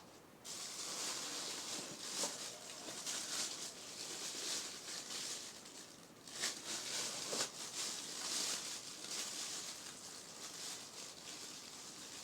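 Packaging being handled and opened: rustling and crinkling with a few sharp crackles, starting about half a second in.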